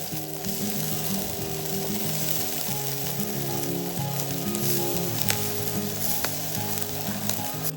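Food sizzling as it fries in a hot pan: a steady, continuous hiss, with background music underneath.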